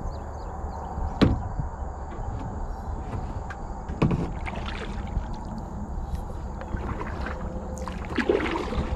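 Kayak paddling: a paddle dipping and splashing in river water, with three sharp knocks, about a second in, at about four seconds, and near the end.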